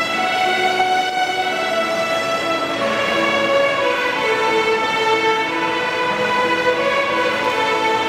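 Large ensemble of children's violins playing a melody together in sustained bowed notes, each held for about half a second to a second before stepping to the next.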